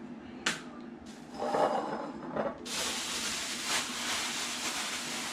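A click, some brief handling noises, then a steady hiss from a little under three seconds in until the end.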